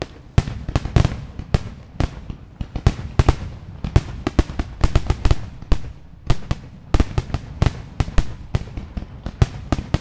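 Fireworks going off in rapid, irregular succession: many sharp bangs and pops, several a second, over a low rumbling background.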